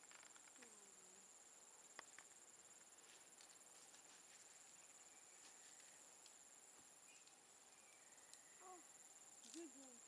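Faint, steady, high-pitched chirring of insects, with a sharp click about two seconds in and a few brief faint calls near the end.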